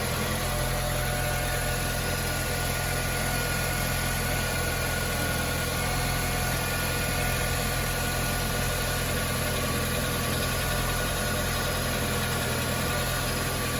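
Engine of a 2002–2006 Honda CR-V idling steadily.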